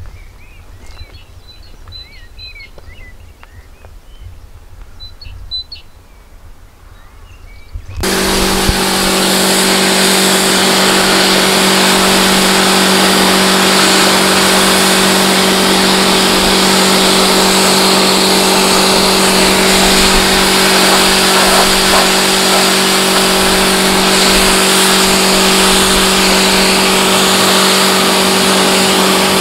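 Faint bird chirps for the first several seconds. About eight seconds in, a pressure washer cuts in loud: a steady motor hum under the hiss of the high-pressure water jet spraying onto the car's mud-caked bodywork.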